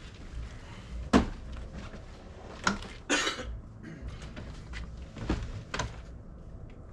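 A few scattered knocks and clunks, the loudest about a second in, with a short rustle about three seconds in.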